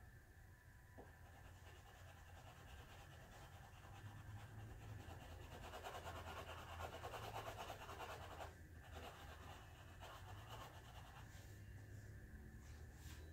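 Faint scratching of a pencil on paper as a coloring page is filled in, strongest around the middle, over a low steady room hum.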